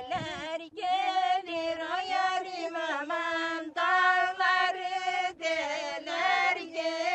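Women singing a Turkish folk song (türkü) together without accompaniment, in long held notes that waver and bend in pitch, with brief breaths between phrases.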